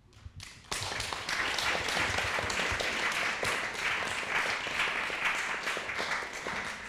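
A small audience applauding, starting under a second in and tailing off near the end.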